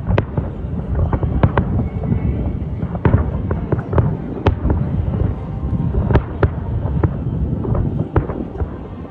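Fireworks display: many sharp bangs at irregular intervals over a continuous low rumble of explosions.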